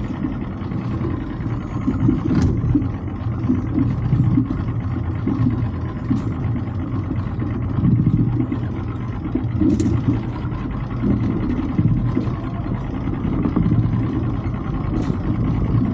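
Boat's outboard motor running steadily as the boat travels, a continuous low rumble, with a few faint short clicks.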